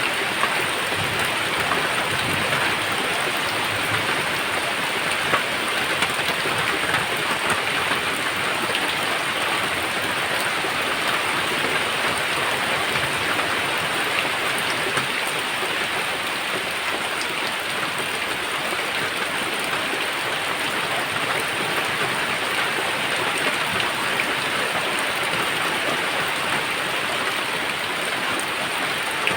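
Steady rain falling, an even, dense patter of drops on surfaces that holds at one level throughout.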